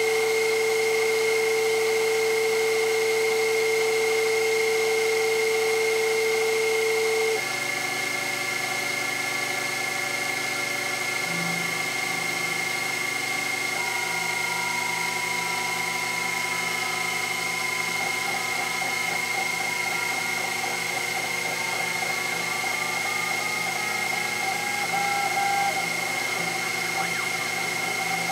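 Sherline CNC mill machining a Delrin rod on its rotary axis: the spindle drives a small end mill through the plastic while the axis motors run. There is a steady high whine throughout, and lower tones that shift and glide in pitch as the feeds change, one dropping out about seven seconds in.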